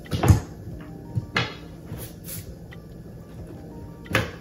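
Wooden frame and legs of a folding massage table knocking and clattering as they are handled, in several sharp knocks: the loudest about a quarter second in, others about a second and a half in and near the end.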